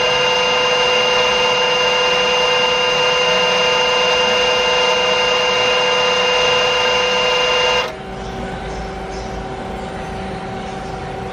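Nomura NN32YB2 CNC Swiss-type lathe running, with a loud steady whine of several high tones. The whine cuts off abruptly about eight seconds in, leaving a quieter steady machine hum.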